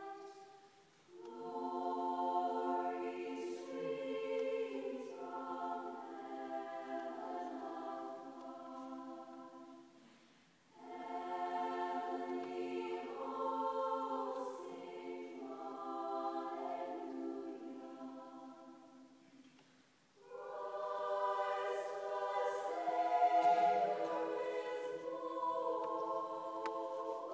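Choir singing in long, slow phrases, with brief pauses between them about a second in, about ten seconds in and about twenty seconds in.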